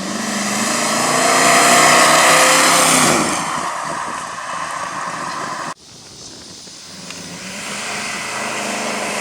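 1969 Chevrolet Camaro's 454 big-block V8 with chambered exhaust accelerating, its pitch rising to a peak about two seconds in and then easing off. The sound cuts off suddenly about halfway through, then the engine builds again.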